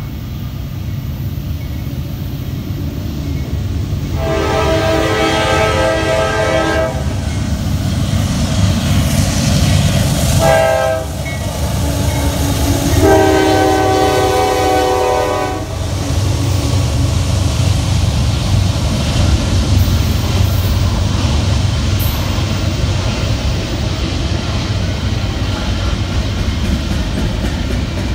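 CSX diesel freight locomotive sounding its air horn as it passes: a long blast, a short one that drops in pitch as the engine goes by, and a third blast. Then the steady rumble and wheel clatter of double-stack container cars rolling past.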